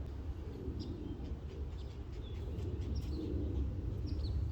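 Small birds chirping in short, quick calls, a dozen or so, over a steady low rumble.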